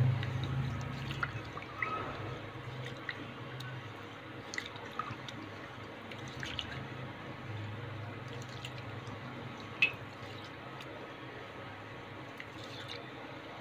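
Fingers swishing and rubbing foxtail millet grains in a bowl of water as they are washed: faint watery sloshing and drips with scattered small ticks, and one sharper click about ten seconds in.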